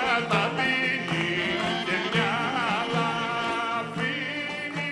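Background music with a wavering, singing melody line over a steady low note, slowly fading out.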